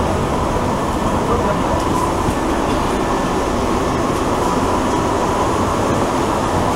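An AnsaldoBreda metro train running along the track, heard from inside the passenger car: a steady running noise with a faint high whine.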